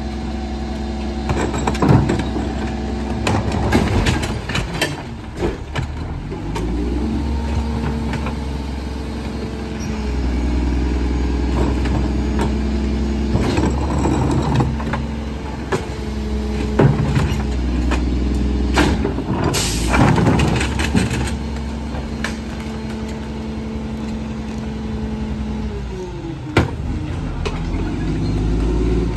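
Rear-loading garbage truck: the engine revs up about six seconds in to drive the hydraulic packer, holds a steady higher pitch, and drops back toward idle near the end. Bins knock against the hopper throughout, and there is a short hiss about two-thirds of the way through.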